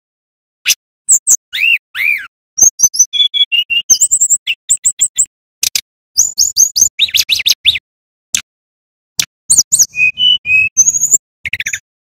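Male brown-chested jungle flycatcher singing: a lively run of varied clear whistles, short trills and fast repeated chirps, in phrases broken by brief pauses.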